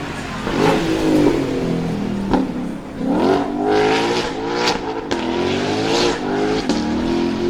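Ford Mustang race car's V8 accelerating hard, its pitch rising and dropping back several times as it shifts up through the gears, with a few sharp cracks along the way.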